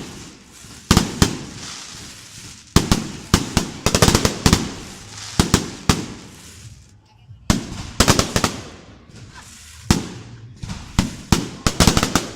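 Fireworks display: aerial shells bursting in a rapid, irregular series of sharp bangs, often in quick clusters of two to four, each followed by a short rumbling echo, with a brief lull about seven seconds in.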